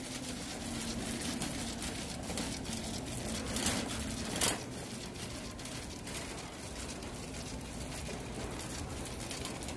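Loaded metal shopping cart rolling across a store floor: a steady rolling noise under a warehouse store's background hum, with two short knocks about three and a half and four and a half seconds in.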